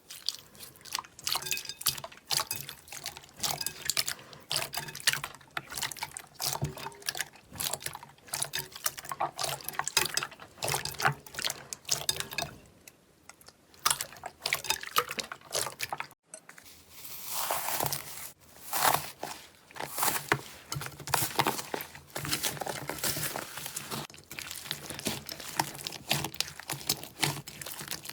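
Slime being squeezed and pressed by hand: a dense, irregular run of wet clicks and pops. There is a brief gap about sixteen seconds in, and then another batch of slime starts crackling.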